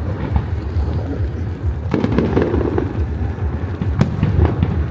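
Aerial fireworks bursting: a sharp bang about two seconds in followed by crackling, then another sharp bang about four seconds in, over a continuous low rumble.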